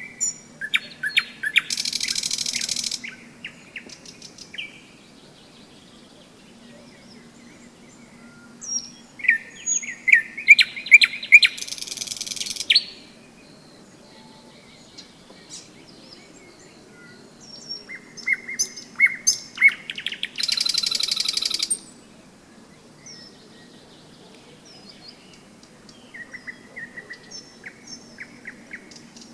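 Nightingale singing: four phrases separated by pauses of several seconds, each a run of repeated clear whistled notes. The first three end in a loud, very rapid rattling trill about a second long. The last phrase, near the end, is quieter and has no rattle.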